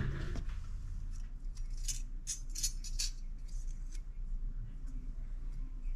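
Light clicks and clinks of small parts being handled during a VANOS gasket change, a quick cluster of them about two to three seconds in, over a low steady hum.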